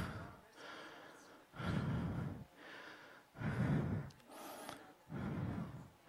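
A woman's voice answering off-microphone, faint and indistinct, in several short phrases with pauses between them.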